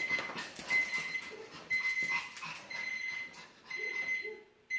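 Pampered Chef kitchen timer alarm going off at the end of its one-minute countdown: a high beep repeating about once a second. Short clicks and knocks mingle with it.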